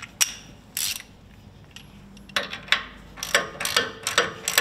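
A couple of metal clinks, then a hand ratchet clicking in short, quick strokes from about halfway, as it runs a castle nut down onto an upper ball joint stud.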